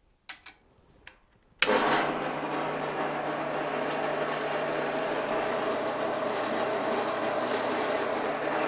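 A few faint clicks, then about a second and a half in a Powermatic drill press motor is switched on and runs steadily with a low hum, the spindle turning a quarter-inch bit.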